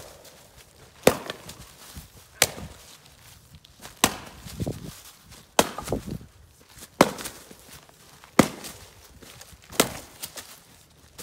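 Splitting axe striking white ash rounds: a sharp chop of steel into wood roughly every second and a half, with lighter knocks between some strikes.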